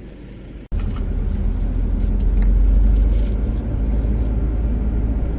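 A vehicle driving on a road: a steady low rumble of engine and road noise. It starts abruptly less than a second in.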